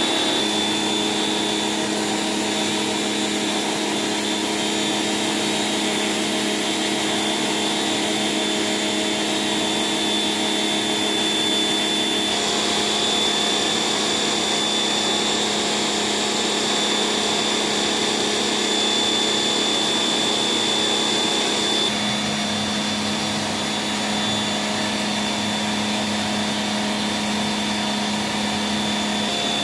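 Electric pressure washer running steadily, a motor-and-pump hum with a high whine under the hiss of the water jet spraying on a pebble-stone floor. The tone changes abruptly twice, about 12 and 22 seconds in.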